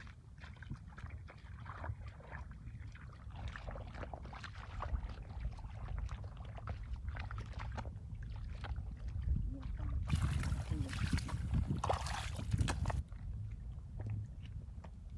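Bare feet squelching and slapping through wet mud in irregular steps, over a steady low rumble. About ten seconds in, a louder hiss covers everything for about three seconds, then cuts off.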